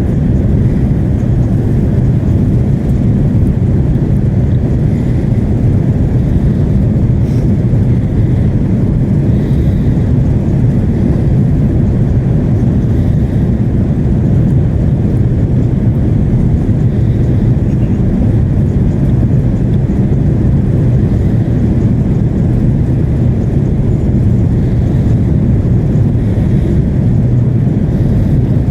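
Steady low drone of an Airbus A330-300 airliner heard inside the cabin: engine and airflow noise on the approach to landing.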